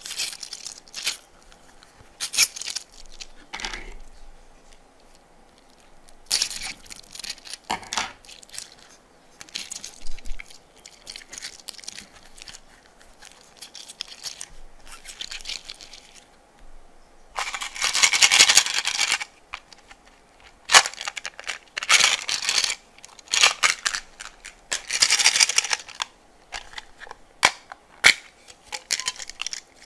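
Small plastic beads and water beads being dropped onto and pressed into slime in a clear plastic tray: scattered clicks and crackly, rustling bursts, with longer, louder crackly bursts in the second half.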